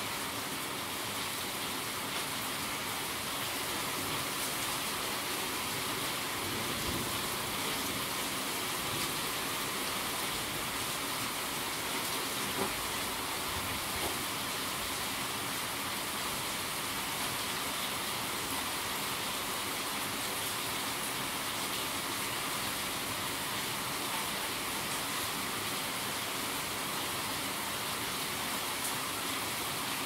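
Steady rain falling, an even hiss with a few faint taps of drops near the middle.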